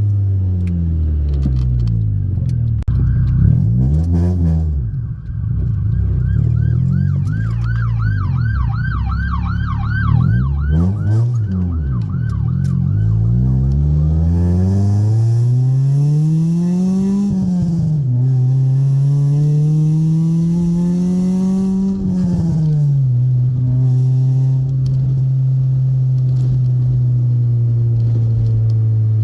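Honda EK Civic engine with full header and exhaust, driving: engine speed rises and falls, climbs twice and drops sharply at each gear change, then settles to a steady cruise. A siren wails with a quick wavering pitch for several seconds early on.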